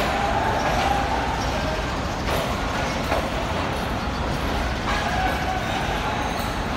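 Busy railway platform ambience: a steady low rumble beside a standing passenger train, with faint distant voices.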